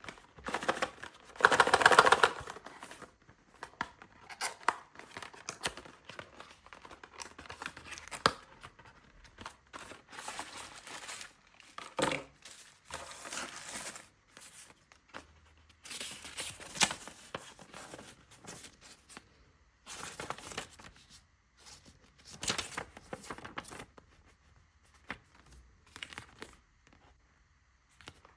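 A Happy Meal toy's packaging being torn open and crinkled by hand: a loud tearing burst about two seconds in, then scattered shorter rustles and crinkles as the wrapping is handled.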